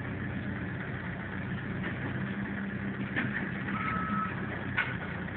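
Forklift engine idling steadily, with a single short electronic beep about four seconds in.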